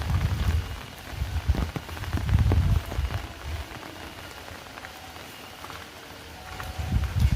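Heavy rain falling steadily, with several low rumbles swelling and fading: near the start, around two to three seconds in, and just before the end.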